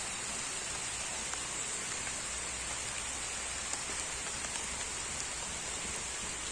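Steady rain falling on trees and leafy undergrowth: an even hiss with a few scattered drop ticks.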